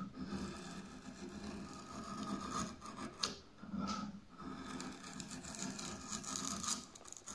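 Hand-forged drawknife shaving the edge of a wooden board in several pull strokes with short breaks between them, the blade slicing off long curled shavings.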